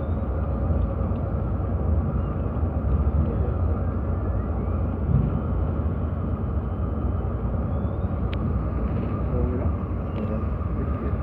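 Steady cabin noise inside a moving Volvo B11R coach: a low drone from its 11-litre straight-six diesel engine mixed with road and tyre noise. A couple of faint clicks or rattles come near the end.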